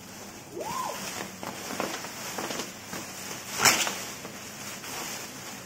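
Inflated plastic air-cushion packaging crinkling and crackling as it is pulled out of a cardboard box, with one sharp, loud snap about three and a half seconds in.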